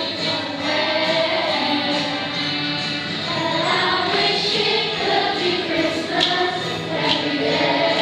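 A group of scouts singing a Christmas song together as a choir.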